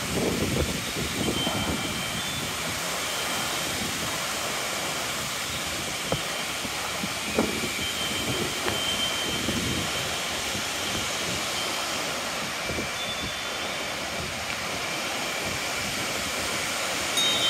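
Strong gusty wind rushing through large leafy trees in a steady roar, with gusts buffeting the microphone in a few low thumps near the start and again about seven to nine seconds in. These are the strong wind gusts ahead of a severe thunderstorm.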